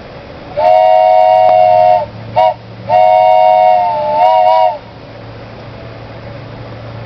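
Wooden train whistle blown with its finger holes covered, sounding a chord of several tones together. A long blast of over a second, a short toot, then another long blast whose pitch wavers near the end.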